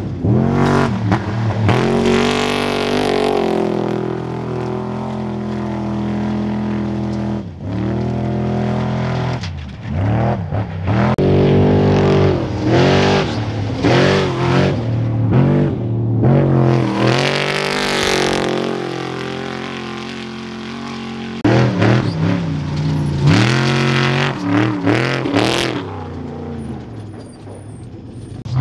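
Trophy Truck race engines revving hard in a series of passes. The engine pitch climbs and drops sharply through the gear changes, with stretches of quieter running between the loud passes.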